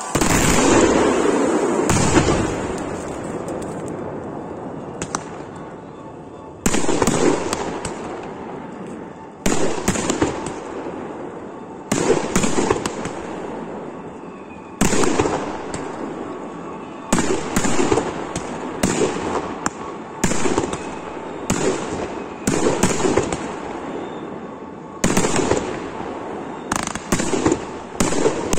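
Professional fireworks display: a series of sharp bangs from firework shells and batteries bursting, each fading away over a second or more. The bangs come every two or three seconds at first and closer together later on.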